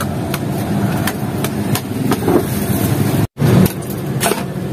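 Long-handled metal spatula clanking and scraping against a large steel wok of rice: irregular sharp strikes about every half second, over a steady low rumble of street noise.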